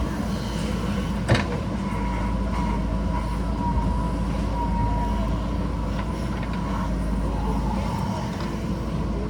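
JCB backhoe loader's diesel engine running steadily under working load, with a faint steady whine. One sharp clank about a second in.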